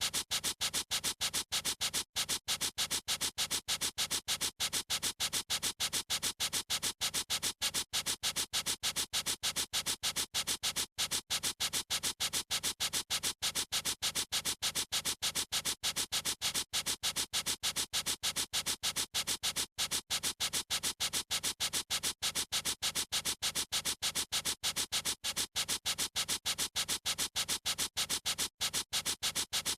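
A pen or marker scribbling on paper: rapid, even back-and-forth scratching strokes that repeat steadily like a loop.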